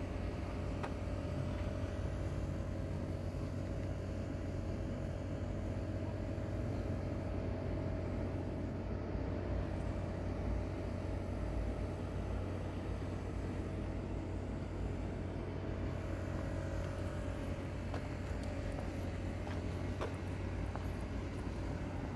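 Steady low rumble and hum of motor traffic, with a faint steady whine that fades out near the end.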